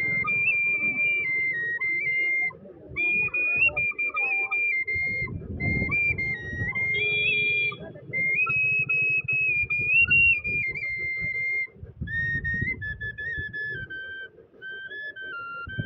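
Bansuri (side-blown bamboo flute) playing a slow melody of held notes that step up and down in a high register, moving lower for the last few seconds. A low rumble runs underneath.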